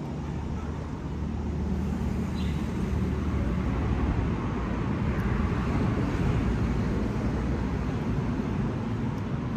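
A running engine: a steady low hum with a noisy wash over it, swelling a little in the middle.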